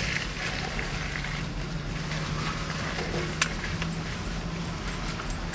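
Nissan Frontier pickup crawling along a muddy trail in four-wheel drive, heard from inside the cab: a steady low engine hum with light clinks and rattles from loose things in the cab.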